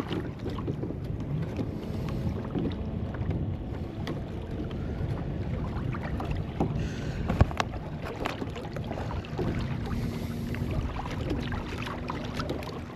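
Kayak on open water: wind rumbling on the microphone, with a few sharp knocks, the clearest about seven and a half seconds in.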